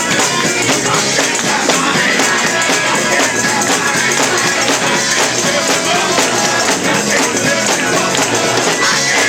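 Loud church praise music with a tambourine shaken and struck in a fast, steady rhythm over the band.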